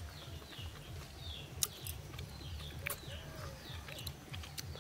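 Small birds chirping, a string of short falling calls repeated about once or twice a second, over a low rumble, with a few sharp clicks.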